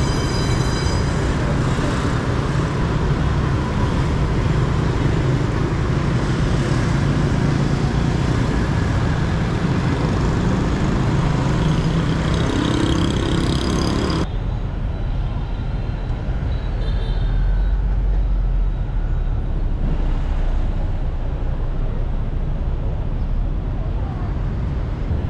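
Busy street traffic, mostly motor scooters and motorbikes running past in a steady mass. About fourteen seconds in it cuts abruptly to a duller, lower rumble with far less hiss.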